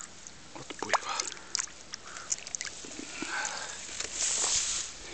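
Handling noise of a hand-held camera: scattered small clicks and knocks, then a brief rustle about four seconds in as the camera brushes through tall grass at the water's edge.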